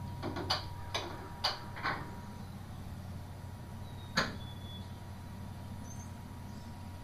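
A run of sharp mechanical clicks and knocks, five close together and then a single louder one a couple of seconds later, as equipment is handled in an X-ray room. Underneath runs a steady low electrical hum with a faint constant tone.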